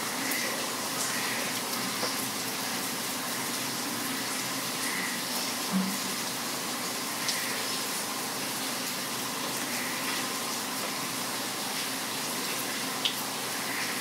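Steady rain hiss with faint short bird chirps every few seconds. A few short sharp taps stand out, the loudest about six seconds in.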